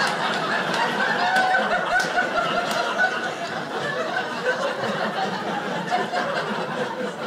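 Comedy-club audience laughing at a punchline, many voices together, the laughter tapering off near the end.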